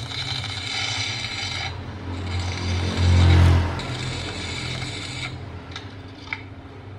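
Stick-welding arc from a GOMES ARC 220 welder at a middle current setting: the electrode burning with a steady crackling hiss over a low buzz, loudest about three seconds in, then the arc breaks off about five seconds in. It is heard as a recording played back on a phone.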